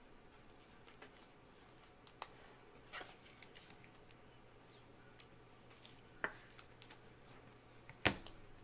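Gloved hands handling trading-card packaging: soft rustle of a clear plastic sleeve with scattered light clicks, and a sharper knock near the end.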